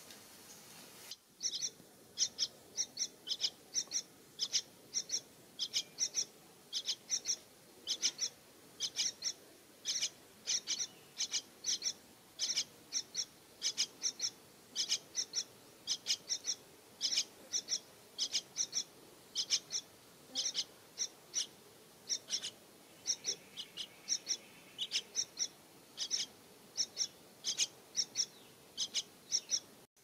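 Parakeets at a tree-hole nest calling: short, high, shrill chirps repeated steadily about two to three times a second, starting about a second in.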